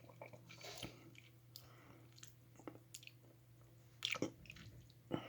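Faint chewing of a mouthful of dense, sticky gummy candy, with scattered small mouth smacks and a louder cluster of them about four seconds in.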